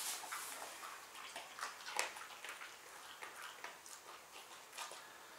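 Faint rustling and a few small clicks of movement in a quiet room, with a slightly louder click about two seconds in.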